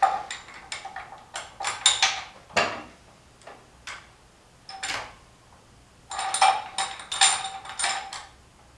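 Hand ratchet wrench clicking as it is swung on a socket at the camshaft end of a Porsche Cayman S engine, with metal clinks that ring briefly. The clicks come in short runs, three bursts with quiet gaps between them.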